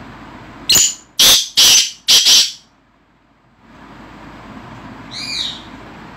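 Black francolin calling: four loud, harsh notes in quick succession about a second in, then a single fainter call near the end.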